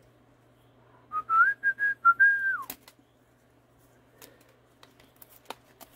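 A person whistling a short phrase of a few held notes, ending in a falling slide. It is followed by a few light, sharp clicks as the hand tags are snipped off the watch with small cutters.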